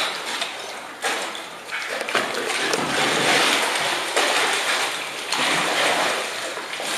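Water splashing and sloshing as polar bears move and play in a pool, in uneven surges, with sharper splashes about one and two seconds in.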